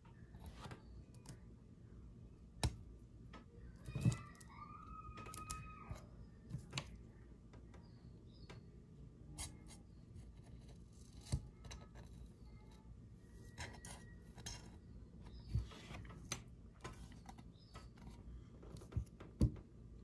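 Handling noise from an adhesive plastic chassis protector sheet being picked at with a small pointed tool: scattered light clicks and taps over a low steady background, with a brief squeak about four seconds in.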